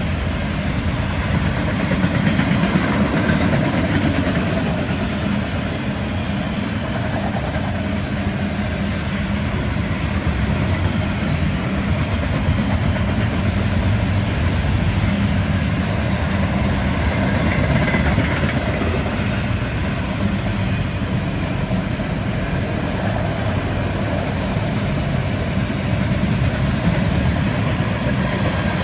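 Freight train cars rolling past at close range: autorack cars and then tank cars, with a steady noise of steel wheels on the rails.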